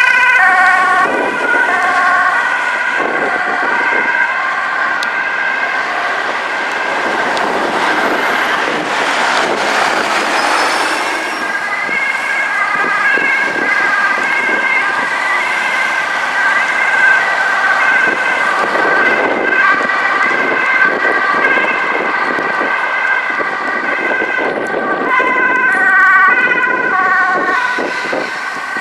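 Dutch ambulance two-tone sirens alternating between a high and a low note, with a rush of road noise as a vehicle passes about eight to eleven seconds in.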